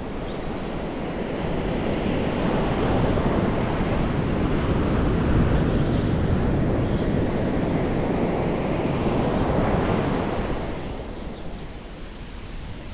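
Ocean surf washing up a sand beach: the roar swells over the first couple of seconds, holds through the middle and fades away near the end, with wind on the microphone.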